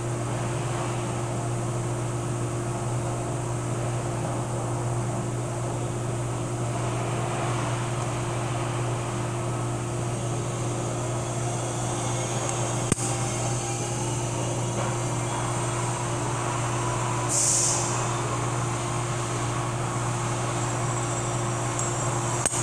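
Steady low mechanical hum of a running machine in a workshop. A sharp click about 13 seconds in, a short hiss about 17 seconds in, and another click near the end.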